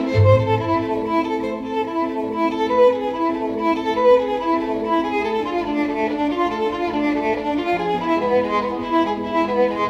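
Classical background music, with a violin carrying the melody over held string notes.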